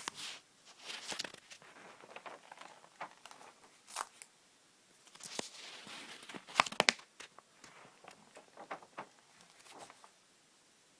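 Paper pages in a three-ring binder being handled and flipped: irregular papery rustles and swishes with scattered light taps. The loudest part is a quick cluster of sharp clicks about six and a half seconds in.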